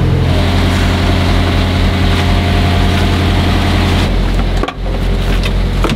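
The sailboat's inboard engine idling steadily, heard below deck as a loud, even low hum, with a brief dip in level about three-quarters of the way through.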